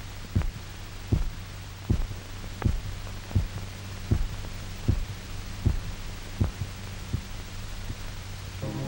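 A dog's heartbeat on an old film soundtrack: steady low thumps about every three-quarters of a second over a low hum. It is the revived dog's heart beating on its own, off the artificial circulation pump. Music comes in near the end.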